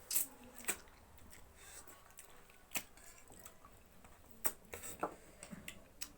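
Close-miked eating sounds: wet chewing with a handful of sharp, irregular lip smacks and clicks, the loudest right at the start.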